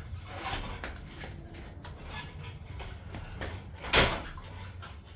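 Steel hitch-mount motorcycle carrier parts being handled and fitted: scattered metal knocks and rattles, with one loud clunk about four seconds in.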